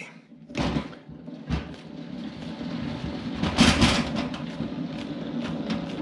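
Hand-cranked stainless-steel VINGLI tangential honey extractor spinning up: the crank gearing whirs and the frame basket rumbles steadily as it gathers speed, after a couple of knocks near the start.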